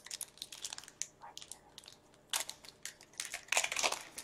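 A trading-card pack's wrapper crinkling and being torn open by gloved hands: a run of crackles and rustles, loudest in two bursts about two and a half and three and a half seconds in.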